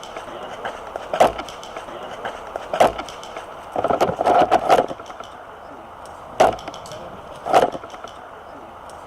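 Airsoft guns firing: sharp single shots a second or more apart, and a short rapid burst of about six shots near the middle.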